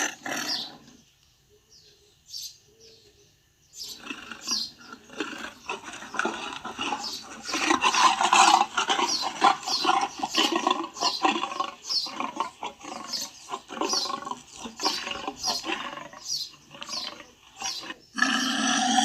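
Tiger vocalizing: a roar trails off, a few seconds of near silence follow, then a long run of rapid, rough growls and grunts. Another loud roar begins near the end.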